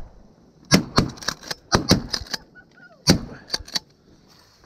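Shotgun fire at ducks: a quick string of sharp reports starting just under a second in, then a second flurry of three about three seconds in.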